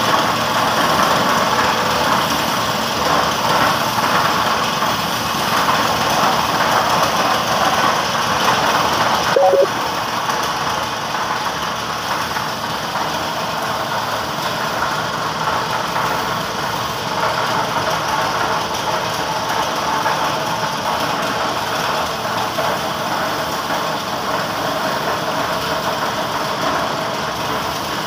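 Spray-painting equipment running steadily: a workshop air compressor with the hiss of a gravity-feed spray gun. The level peaks briefly and drops slightly about nine and a half seconds in.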